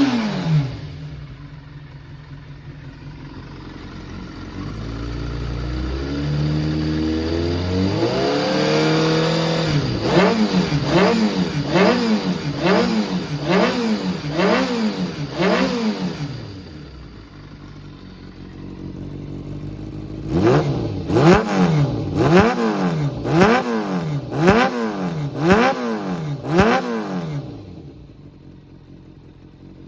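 Kawasaki ZRX400's inline-four engine idling and being blipped on the throttle: a slow rise in revs, then two runs of quick rev blips, about one a second, with a few seconds of idle between, settling back to idle near the end. The seller states it runs without abnormal engine noise.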